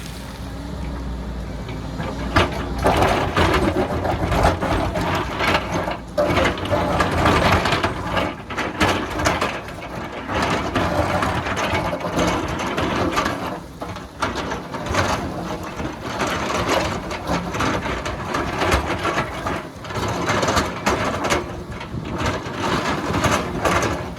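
Excavator at work: engine running under dense, irregular crunching and scraping as the bucket cuts into hillside soil and rock.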